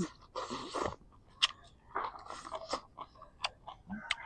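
Close-up mouth sounds of eating hotpot: a short slurp as food goes in near the start, then chewing with wet clicks and crunches.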